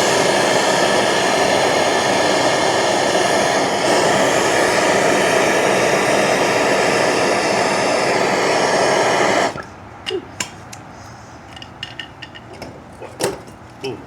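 MAP gas torch flame hissing steadily while heating a copper solder joint, shut off suddenly about nine and a half seconds in. Light metallic clicks and taps follow.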